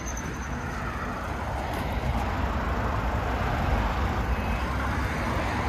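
Service van's engine idling steadily, a low rumble with a hiss.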